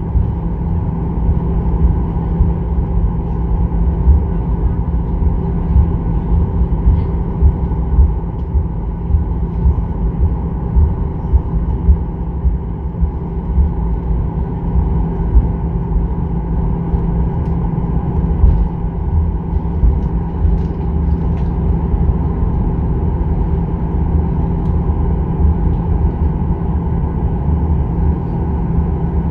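Cabin noise of a Boeing 737-800 taxiing: a steady, loud low rumble with constant hums, and uneven low thuds from the rolling aircraft.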